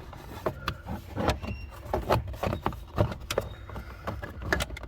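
Plastic steering-column trim on a car being handled and fitted back into place: a run of irregular light clicks and knocks.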